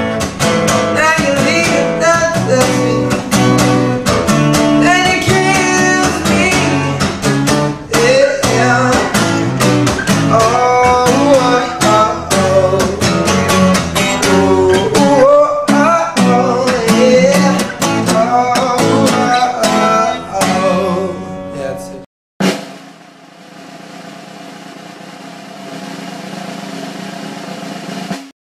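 Song with guitar, singing and a drum beat, which stops about 22 seconds in. After a brief gap comes a much quieter steady hiss with a faint hum, cutting off just before the end.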